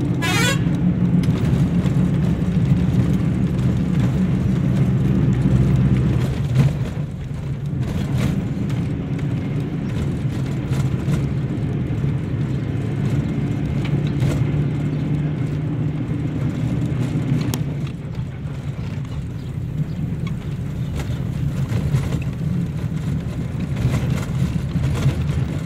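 Engine drone and road noise heard from inside a moving vehicle, a steady low hum that eases off about six seconds in. A brief rising whistle-like tone sounds at the very start.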